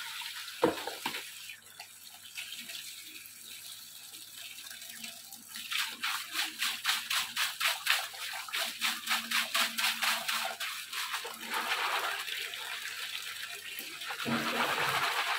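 Water running and splashing as a colander of small crabs is rinsed in a plastic basin, with a sharp knock just under a second in. From about six seconds in the colander is shaken under the stream, giving quick rattling splashes about five times a second, and near the end the water pours more strongly into the basin.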